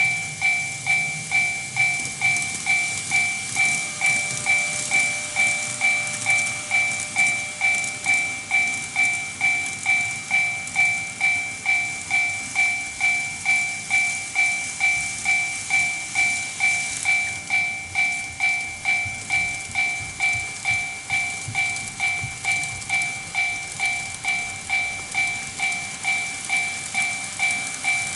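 TOMIX Automatic Crossing II model level crossing sounding its electronic Japanese crossing bell: a two-tone 'kan-kan' pulse repeating steadily, just under twice a second. Underneath is the hissing, clicking running noise of N-gauge model trains on the track.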